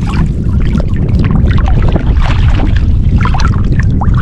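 Choppy river water lapping and splashing right at the microphone, over a steady rumble of wind on the mic.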